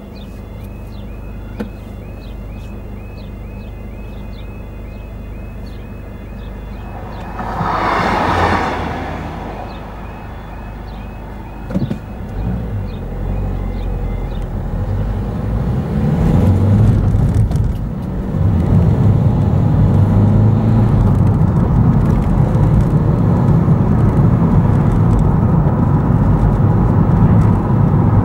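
Level crossing warning alarm warbling in a steady repeating pattern, with a train rushing past in about two seconds some eight seconds in. A knock comes about twelve seconds in, and the alarm stops as the barriers rise. Then a car pulls away and drives off, its engine and tyre noise growing louder.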